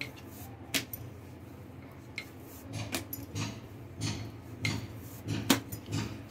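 Wooden rolling pin rolling out dough on a round rolling board (chakla): a few sharp clicks, then from about three seconds in a run of low rolling strokes, about two a second.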